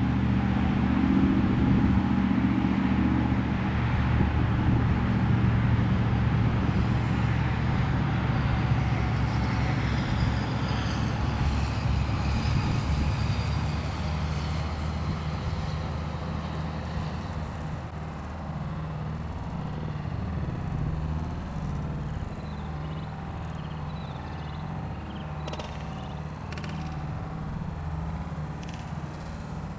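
Steady low rumble of road traffic, easing off somewhat in the second half, with a few faint clicks near the end.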